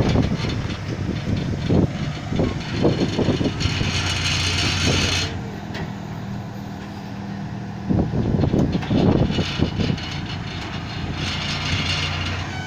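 Heavy military bridge-laying truck's diesel engine running steadily as the truck unfolds its folding steel bridge span. There are two spells of hiss, about four seconds in and near the end, and irregular low rumbling bumps.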